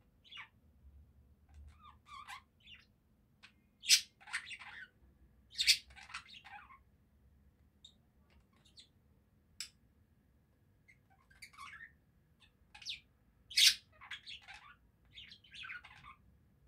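Budgerigar warbling and chattering in short, scratchy phrases between pauses, with three sharp, loud chirps standing out about 4, 6 and 14 seconds in.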